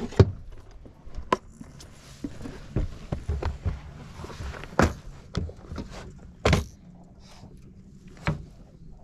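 Irregular knocks, thumps and clicks of gear being handled and moved on a fishing boat's deck, the loudest near the start, about five seconds in and about six and a half seconds in, over a faint steady low hum.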